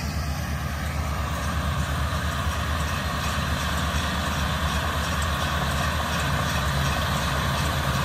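John Deere 5100M tractor's four-cylinder diesel engine running steadily while it pulls a John Deere 450M round baler through the hay.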